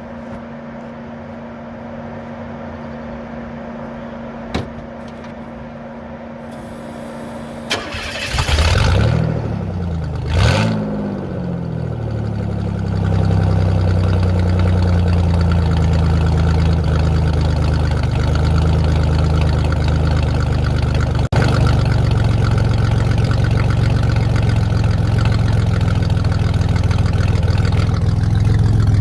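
Car engine with its muffler deleted starting about eight seconds in, revving up twice, then settling into a loud, deep, steady idle. Before the start there is a low steady hum and a couple of clicks.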